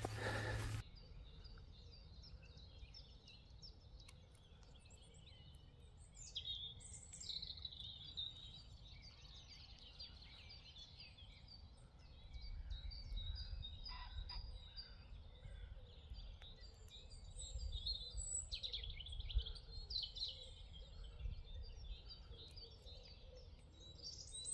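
Small birds singing, a busy mix of short chirps and trills, with a low rumble underneath that grows in the second half.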